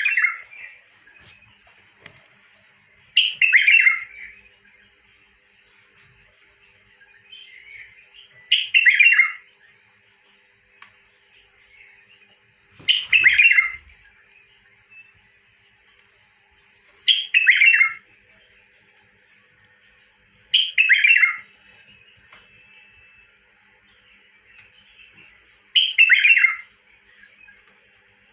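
Caged bulbul singing: short loud warbled phrases of about a second each, repeated seven times at gaps of roughly four seconds.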